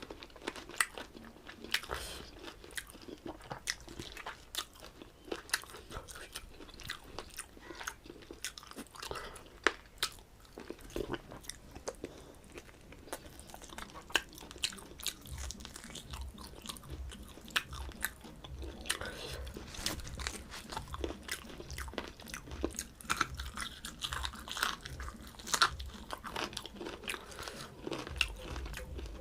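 Close-miked eating sounds of a person chewing and biting a meal of rice and mutton curry, with many short, sharp mouth and food clicks.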